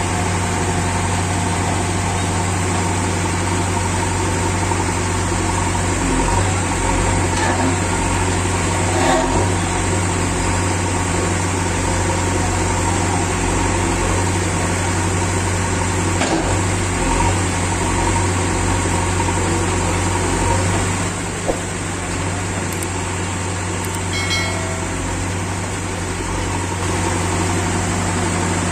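JCB 3DX backhoe loader's diesel engine running steadily while the backhoe arm digs sand, with a few faint knocks.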